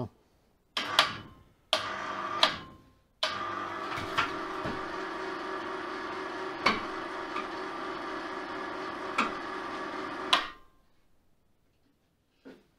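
Electric hoist lifting an engine: the motor is jogged in two short bursts, then runs steadily for about seven seconds with a few clicks along the way, and stops.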